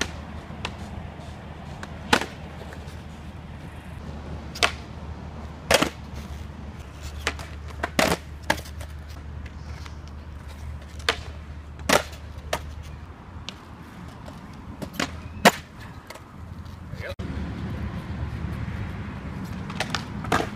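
Skateboard rolling on concrete, a low rumble of wheels, with about a dozen sharp clacks of the board striking the ground at irregular intervals. The rolling rumble drops away about two-thirds of the way through and comes back stronger near the end.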